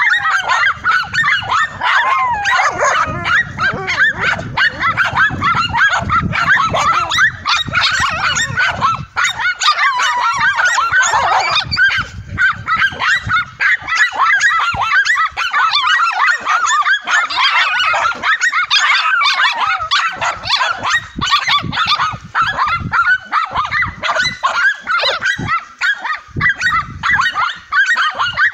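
Several dogs barking and yelping without a break, their high barks overlapping in a dense chorus as they hold a cornered tegu lizard at bay.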